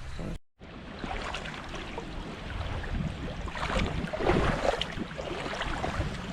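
Creek water sloshing and splashing around wading boots, with wind on the microphone; the splashing gets busier around the middle.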